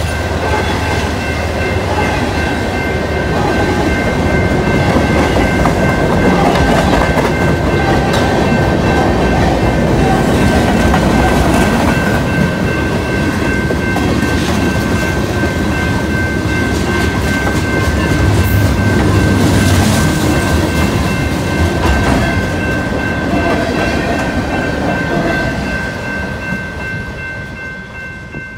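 Manifest freight train rolling past at trackside: a steady rumble of wheels over the rails with clickety-clack from the passing cars. It fades away near the end as the train moves off.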